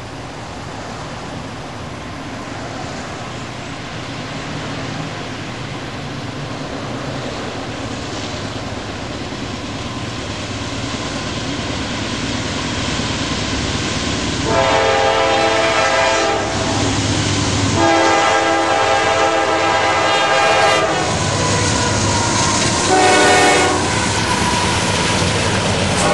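CSX diesel locomotives on an empty coal train approach and pass close by, their rumble growing steadily louder. About halfway through, the air horn sounds two long blasts, a short one and a long one, the grade-crossing signal, as the engines roll past.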